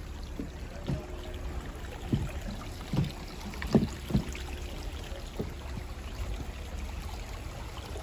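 Footsteps on a dirt trail: a handful of soft, irregular thumps over a steady low rumble of outdoor background noise.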